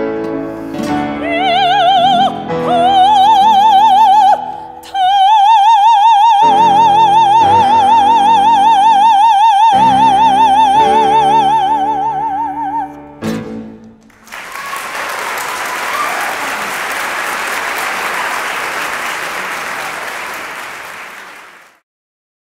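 Operatic soprano singing the closing phrases with piano and guitar, ending on a long, high, held note with wide vibrato that stops about thirteen seconds in. About a second later an audience applauds, and the applause fades out near the end.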